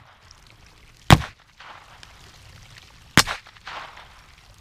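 Two .22 LR shots from a Ruger 10/22 rifle, fired at a target 100 yards off, about two seconds apart. Each sharp crack is followed by a softer tail about half a second later.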